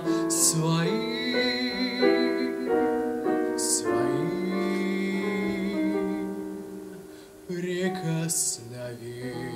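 Male voice singing a Russian romance over piano accompaniment, holding long notes with vibrato. The sound dips about seven seconds in, then the voice comes back on the next word.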